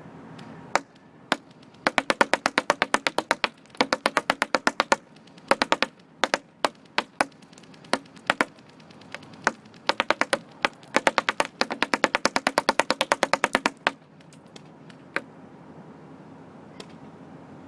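Airsoft BBs striking a cardboard box target as sharp taps, mostly in rapid even strings with a few single hits between them and some faint ticks near the end.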